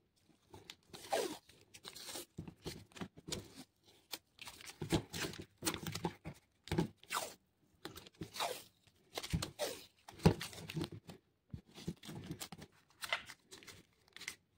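Masking tape being pulled off the roll and pressed around a lithium-ion cell pack: short, irregular ripping rasps, with handling of the taped pack between them.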